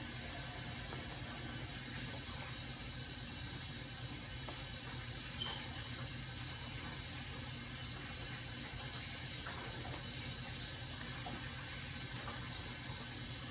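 A steady hiss with a low hum underneath, and a few faint taps of a knife cutting sausage on a plate.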